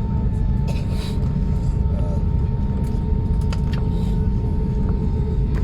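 Jet airliner cabin noise: a steady, heavy low rumble from the engines and airflow, with a steady whine above it and a few faint clicks.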